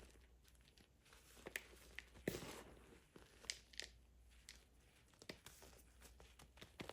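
Reformed gym chalk made with baking soda and cornstarch being crushed: soft crumbling with scattered sharp cracks, the loudest crunch about two seconds in.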